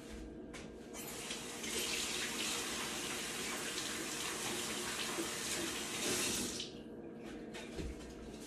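Kitchen tap turned on about a second in, water running into the sink for nearly six seconds, then shut off.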